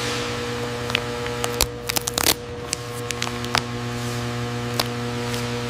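Clear plastic film crinkling and crackling under gloved hands as tape is handled and pressed onto it, a cluster of sharp crackles about two seconds in and a few scattered clicks after. A steady hum runs underneath.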